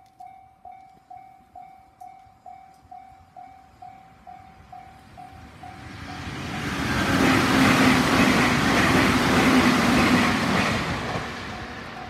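Level-crossing warning bell ringing about twice a second, then a Meitetsu limited express train passing over the crossing. Its rumble builds from about six seconds in and is loudest for several seconds, drowning the bell, which comes back as the train fades near the end.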